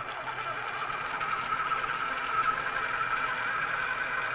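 Food processor motor running steadily with a constant whine, whipping cream cheese, feta and goat cheese into a spread.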